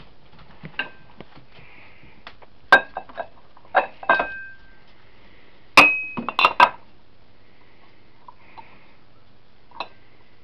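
Hard kitchenware clinking: a series of sharp clinks, several ringing briefly, mostly in the first seven seconds, with one more near the end.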